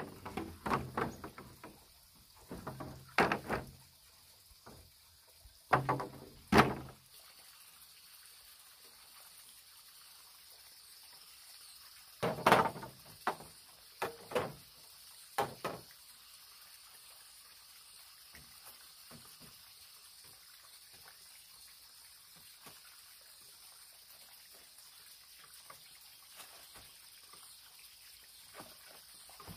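Bamboo poles knocking and clattering against each other as they are laid side by side onto a bamboo floor frame, in several short clusters over the first seven seconds. A few more sharp knocks follow about twelve to sixteen seconds in, then only a faint steady background with occasional light ticks.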